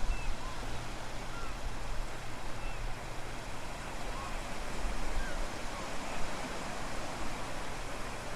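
Wind gusting hard on the microphone with a low rumble, over a steady wash of ocean surf. A few faint, short, high chirps come now and then.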